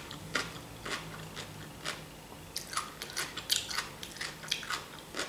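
A person chewing a mouthful of fresh cucumber from a vegetable salad, close to the microphone: irregular small crunches and wet mouth clicks.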